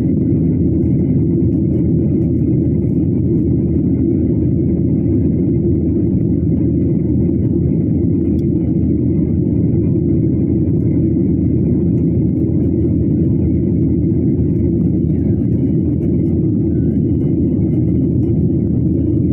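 Airliner cabin noise: a loud, steady low rumble that does not change.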